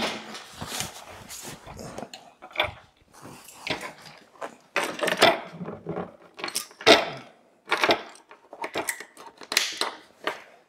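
Handling noises of a wooden vacuum-bag table top being folded up against a wall: a string of irregular knocks and scrapes, with plastic rustling, then the clink of a chain and hook as it is latched.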